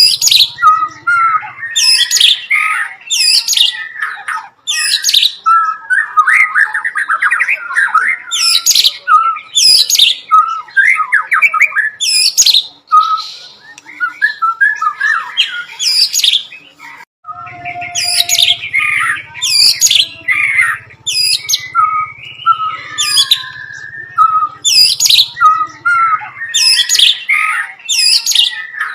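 White-rumped shama (murai batu) singing, repeating sharp falling whistled notes about once a second mixed with fast chattering phrases. It is delivering mimicked bar-winged prinia (ciblek) song material.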